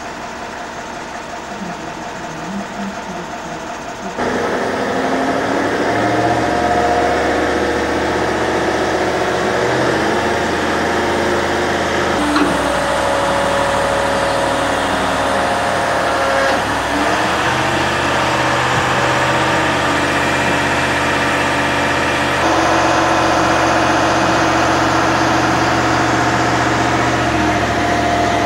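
A steady engine hum, like machinery running at idle. It steps up sharply in loudness about four seconds in and shifts abruptly a few more times.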